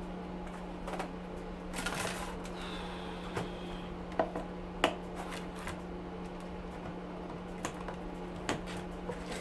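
Small metal parts of a dismantled air cleaner clicking and rattling under hand tools, with a brief ringing tone about two and a half seconds in and two sharp clicks a little after four and near five seconds. A steady low hum runs underneath.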